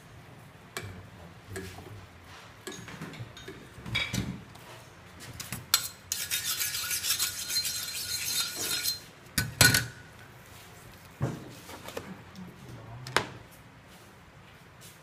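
Kitchen clatter: utensils and dishes knocking and clinking on a steel counter and cutting board, with a few sharp knocks. In the middle comes about three seconds of dense crackling hiss.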